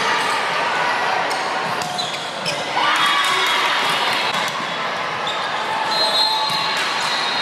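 Live sound of an indoor volleyball game: ball hits and sneaker squeaks on a hardwood court over the chatter of players and spectators. A short cheer goes up a little under three seconds in, as the point ends.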